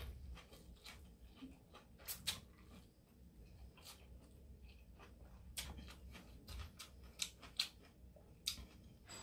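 Faint sounds of eating a fresh rice-paper spring roll: chewing with scattered wet mouth clicks and small crunches of raw lettuce.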